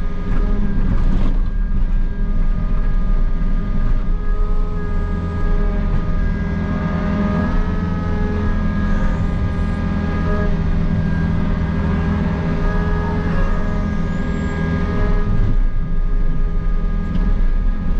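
Takeuchi excavator's diesel engine and hydraulics running steadily under load, heard from inside the cab, while the boom and bucket dig and swing a load of dirt. The steady whining tones shift a little as the machine works.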